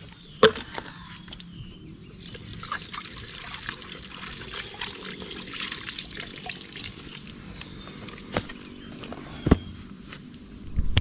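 Water trickling from a small garden hose into plastic poultry waterer jars as they are filled, with a few sharp knocks of the plastic waterer parts being handled, the loudest about half a second in and near the end.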